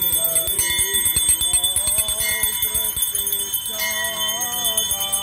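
Small hand bells carried in a church procession, ringing continuously with a steady high jingle, over a voice singing or chanting.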